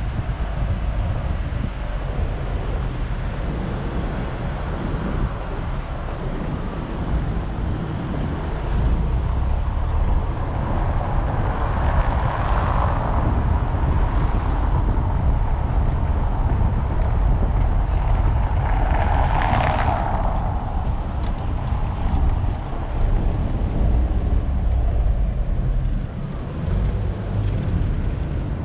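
Car driving over cobblestone and asphalt streets: a steady low rumble of tyre and road noise, with two brief louder swells partway through.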